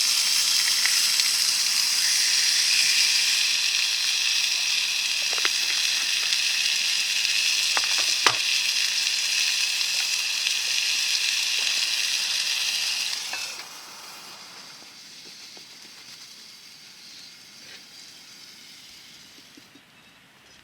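Steak sizzling steadily in a skillet, with a few light knocks partway through. About two-thirds of the way in the sizzle drops off suddenly to a much quieter, fading hiss.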